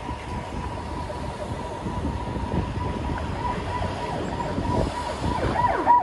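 City street traffic rumbling, with a steady high-pitched tone sounding throughout and a few quick wavering pitch glides near the end.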